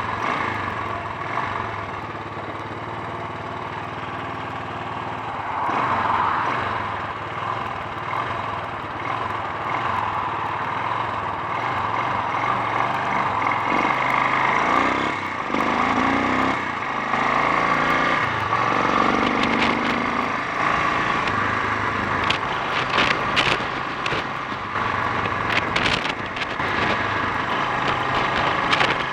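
Honda XL 350 single-cylinder four-stroke engine running during a test ride, its note rising and falling with changes of engine speed about halfway through.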